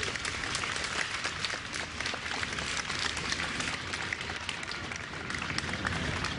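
A large crowd clapping steadily, many hands at once making a dense, even sound of applause.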